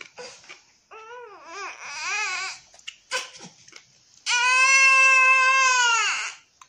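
Baby babbling in short, warbling rises and falls about a second in, then a long, loud shriek held at one high pitch for about two seconds, dropping in pitch as it ends.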